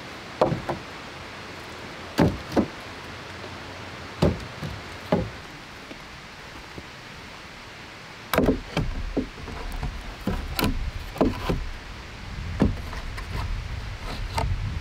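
Hollow wooden knocks: wood striking wood, in single and paired knocks every second or two, then from about eight seconds in a busier run of knocks and clatter as upright log poles are shifted against one another, with a low rumble coming in at the same time.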